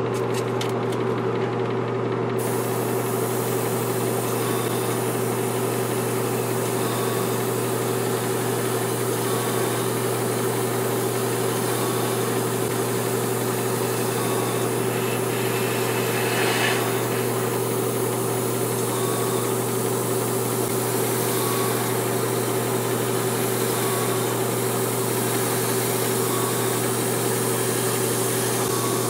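Airbrush compressor running with a steady hum, and an airbrush hissing as it sprays primer at about 24 psi. The hiss starts about two seconds in.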